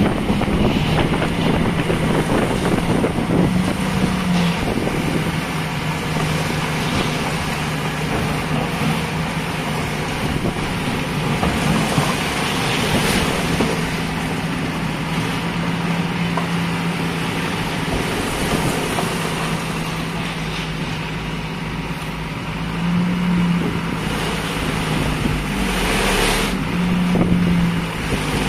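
Tipper truck's diesel engine running at raised revs to drive the hydraulic hoist as the body tips up and the soil load is dumped. A steady engine note, which lifts briefly a few times.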